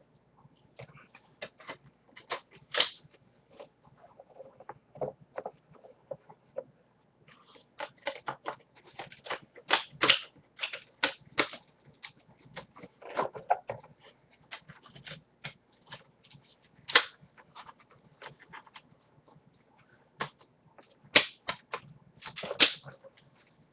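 Disc case and box-set packaging being handled by hand: irregular plastic clicks, taps and rustles, with a few sharper, louder clicks scattered through.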